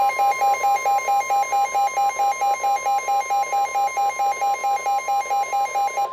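Weather radio alert: a fast pulsing beep, about five a second, over the steady 1050 Hz NOAA Weather Radio warning alarm tone that announces a tornado warning. The beeping stops near the end while the steady tone carries on.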